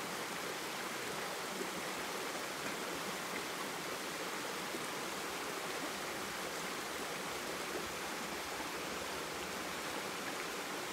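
Steady rushing of a nearby stream or river, an even wash of water noise with no breaks.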